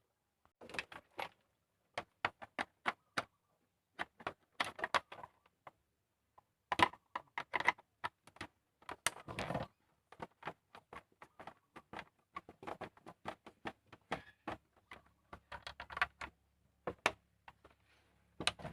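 Irregular sharp clicks and rattles of small parts being handled: a motorcycle handlebar switch housing and its wiring connectors being fitted by hand. A faint low hum comes in near the end.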